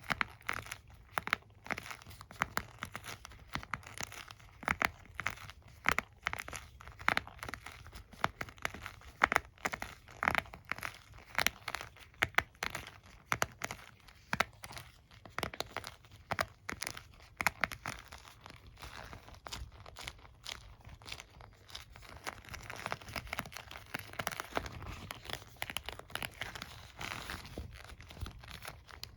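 Fingers touching and scratching a hairbrush, making a dense, irregular run of small crackly clicks and scratches, softer and more continuous for a few seconds near the end.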